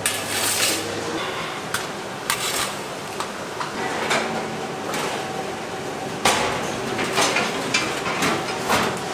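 Stainless-steel sheet pans and a rack trolley clattering as they are loaded into a commercial combi oven: irregular metallic clanks and knocks, the loudest about six seconds in.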